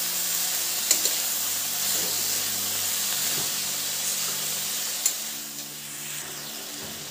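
Strips of ridge gourd, potato and eggplant sizzling in hot oil in a metal kadai while a metal spatula stirs them, with a few sharp clicks and scrapes of the spatula against the pan. The sizzle softens a little after about five seconds.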